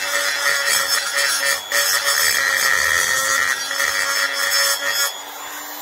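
Electric die grinder with a tungsten carbide burr grinding into a cast-iron motorcycle cylinder head, a steady motor whine under the hiss of the cut, cleaning out a bolt boss before it is built up with bronze. Near the end the burr comes off the metal and the cutting noise drops while the motor keeps running.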